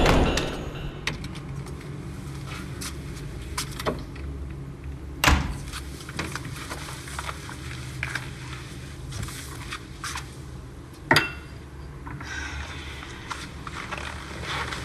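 Quiet background ambience: a low steady rumble with scattered small clicks, and two sharper knocks about five seconds in and about eleven seconds in.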